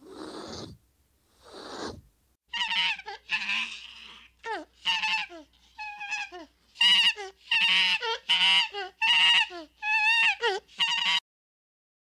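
A bird giving a long run of harsh, honking calls that bend in pitch, after two short breathy hisses. The calls stop abruptly near the end.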